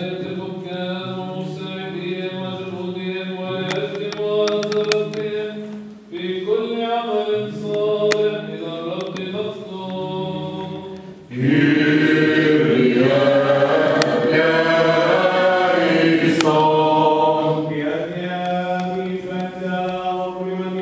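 Liturgical chant sung in church over a steady held low drone note, with melodic lines moving above it; it becomes fuller and louder about eleven seconds in.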